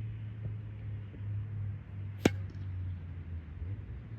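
A boot kicking a rugby ball: one sharp thud about two seconds in, over a steady low rumble.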